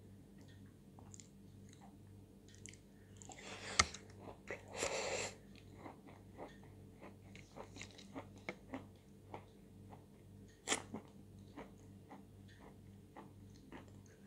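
Close mouth sounds of chewing a spoonful of wet chalk paste: many small wet clicks and smacks. About four to five seconds in there is a louder, noisier stretch with a sharp click, and another sharp click comes a little past the middle.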